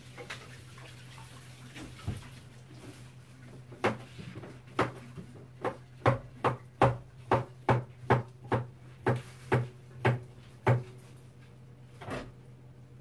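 A run of about fifteen sharp knocks, roughly two a second, over a faint steady hum.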